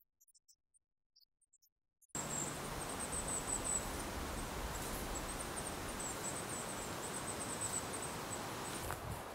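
Near silence for about two seconds, then outdoor ambience cuts in suddenly: wind buffeting the camera microphone and a high, rapidly pulsing insect trill that runs on with short breaks.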